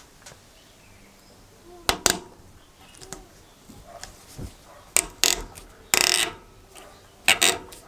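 Metal hand tool being handled and set down on a hard surface: a few sharp clinks and knocks, coming in pairs, with a short scrape about six seconds in.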